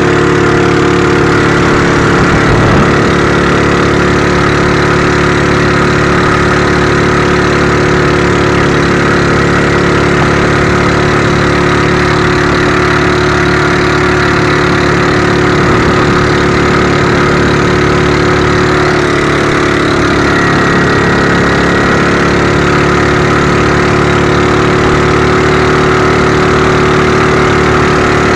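Small engine of a motorized outrigger boat (bangka) running steadily under way.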